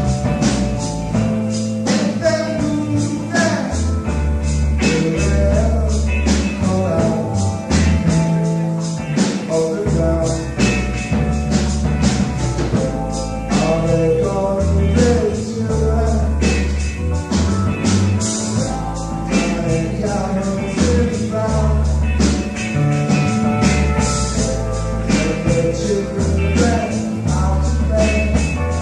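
A rock band playing live, with a male lead singer over drum kit and bass.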